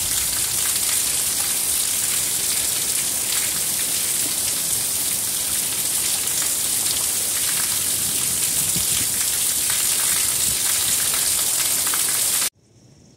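Heavy monsoon downpour: a dense, steady hiss of rain with close drops spattering through it. It cuts off suddenly near the end, leaving only a faint hiss.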